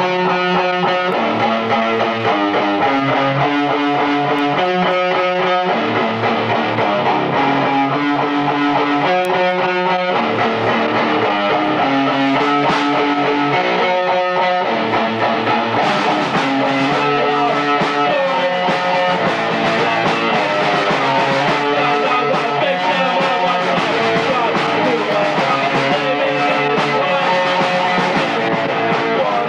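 Punk rock band playing live: electric guitar, electric bass and drum kit through small amps. The cymbals come in more strongly about halfway through.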